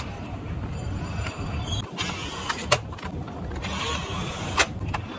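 Toy RC car's small electric drive motor and gears whirring as it drives over a hard floor, with two sharp clicks, one near the middle and one near the end.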